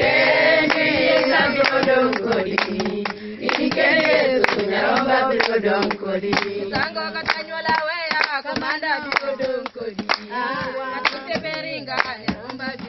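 A group of women singing a worship song together, clapping their hands along with it.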